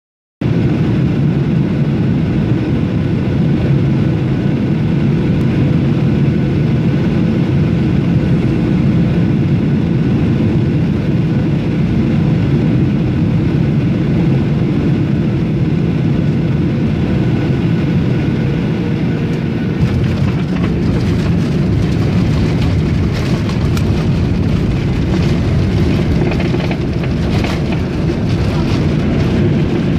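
Cabin noise of a Boeing 737 airliner on final approach: a steady low rumble of engines and airflow with faint steady tones. About 20 seconds in the jet touches down, and the sound turns rougher and brighter with rattling as it rolls out on the runway with spoilers raised.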